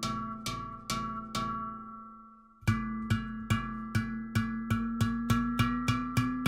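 Celestial Sound A Pele 16 handpan, a nitrided-steel handpan tuned to an A Pygmy scale, played with the hands. A few struck notes ring out and fade to a short pause, then a quicker run of notes follows, about three a second, over a sustained low ringing tone.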